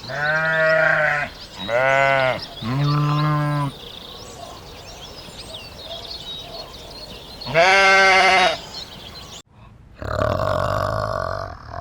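Goat bleating: three calls in quick succession, then a fourth about eight seconds in, with faint high chirps in between. After an abrupt cut near the end, a lower, rougher animal call starts.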